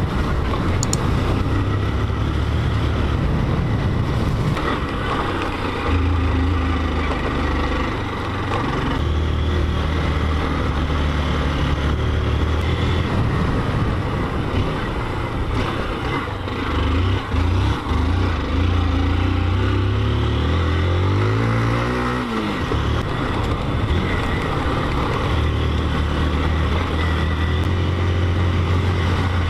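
Motorcycle engine running steadily beneath the rider as he rides. About 20 seconds in the engine pitch climbs for a couple of seconds, then drops away.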